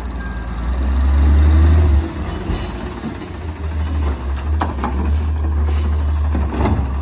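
Engine of an Autocar ACX garbage truck with a Rapid Rail side loader running as the truck creeps along, a steady low drone that swells louder a second or so in and drops back about a second later. A few short sharp clanks or hisses come in the second half.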